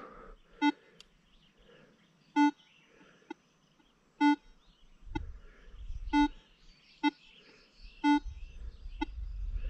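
Minelab Equinox 800 metal detector giving target tones as the coil sweeps back and forth over a gold ring beneath a fridge magnet. A strong short beep comes on each pass one way, about every two seconds, and only a faint short blip on the return: a one-way signal from the masked ring. A low rumble sits under the second half.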